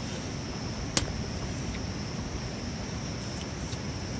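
Steady outdoor hiss with a continuous high-pitched insect drone, faint eating sounds from chewing and hands working the meat, and one sharp click about a second in.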